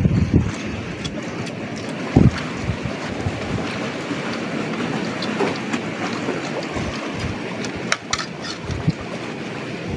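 Wind buffeting the microphone over steady surf on the shore, in gusty low rumbles. A few sharp clinks of spoons on dishes near the end.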